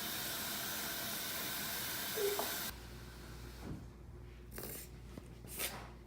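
A steady hiss that cuts off suddenly about two and a half seconds in, followed by a few short, soft rubbing swishes.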